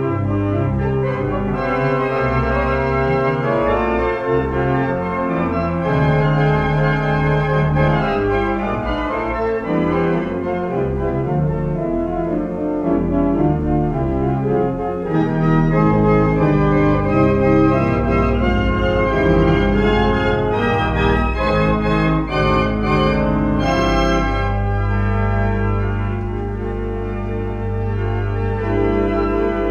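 Restored 1899 James Jepson Binns pipe organ playing a piece of music: chords of held notes moving over one another, with a long-held bass note in the last few seconds.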